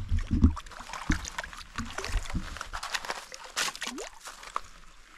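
Creek water splashing and sloshing as dishes are dipped and rinsed in it, with irregular clinks and knocks. A few heavy thumps fall in the first half-second.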